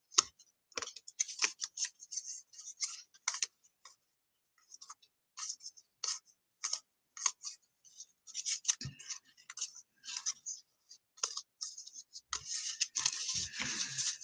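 Football trading cards being flipped through by hand: a run of quick, irregular slides and flicks as one card is pushed off the stack onto the next, with a denser stretch of rustling near the end.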